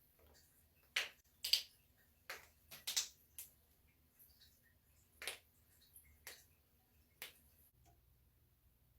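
Joints cracking under a chiropractic adjustment: a series of about nine sharp pops. They come in quick clusters over the first three and a half seconds, the loudest about one and a half seconds in, then about a second apart.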